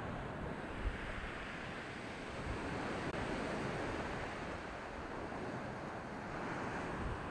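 Sea surf washing against limestone rocks in a steady wash, with wind buffeting the microphone in low, irregular thumps.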